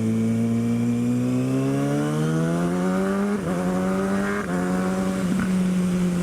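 Kawasaki ZX-6R's inline-four engine under way, its pitch climbing steadily for about three seconds, dipping briefly twice near the middle, then holding steady.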